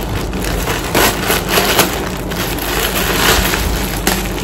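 A plastic courier bag crinkling and rustling as it is handled and pulled open: a dense run of crackles.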